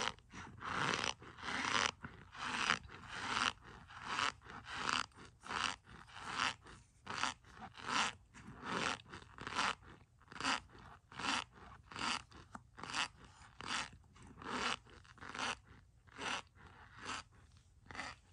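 A spoon digging into and scraping a cup of packed starch, each stroke crunching, in a steady rhythm of a little over one stroke a second that weakens slightly near the end.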